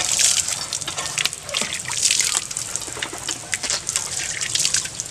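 Water gushing from a cast-iron hand pump's spout and splashing over hands as someone washes under it, rising and falling unevenly.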